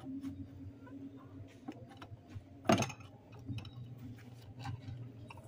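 Small plastic objects clicking and knocking against each other and the cardboard as a baby monkey handles them inside a cardboard box, with one louder knock about halfway through, over a low steady hum.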